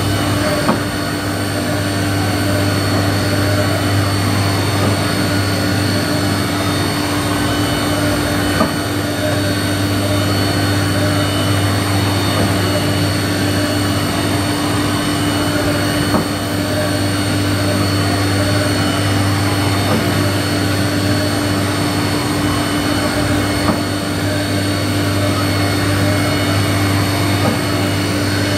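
Haas Mini Mill CNC vertical machining center running with a steady electric hum and whine, with a light tick about every seven to eight seconds.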